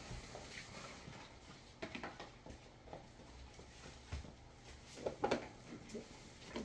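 Light handling noises of items and packaging being taken out of a box: scattered rustles and small taps, with a louder cluster of clatter about five seconds in.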